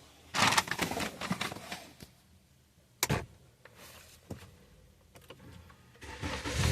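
Handling noises from work on the car. A burst of clattering comes about half a second in, a single sharp click about three seconds in, and a few lighter clicks after that.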